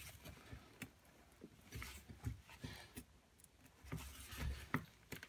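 Faint clicks, scrapes and a few dull knocks of an adjustable spanner being worked against the hex shaft of a Howard 200 rotavator clutch held in a gloved hand; the shaft is not giving.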